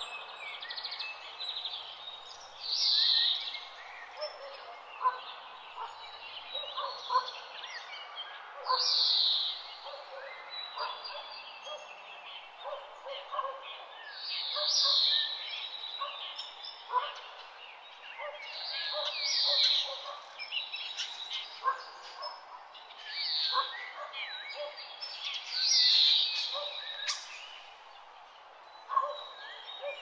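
Forest birdsong: many birds chirping and calling together over a steady hiss, with one louder call repeating every few seconds.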